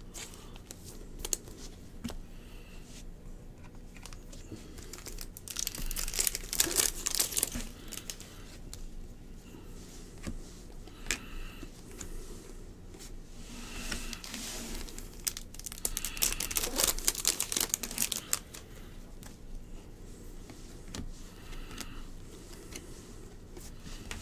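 A stack of glossy trading cards handled and flipped through by hand, with several short bursts of rustling, sliding and crinkling and a few light clicks.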